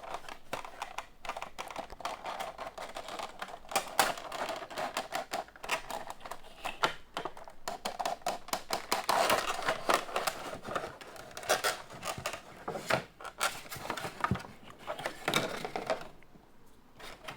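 A Funko Pop vinyl figure's cardboard box and plastic packaging being handled and opened: rapid, irregular clicks and rustling that die away about a second before the end.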